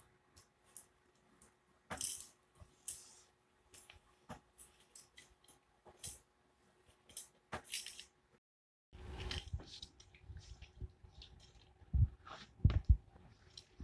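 Scattered light clicks and rattles of small plastic toys being handled: a toy magnifying glass and a keychain light on a metal key ring. Near the end, a few dull thumps.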